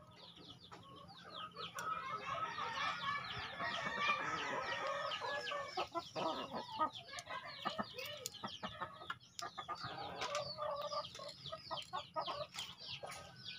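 Chickens calling: many short, high, falling calls overlapping, thickening from about two seconds in, with a few sharp clicks among them.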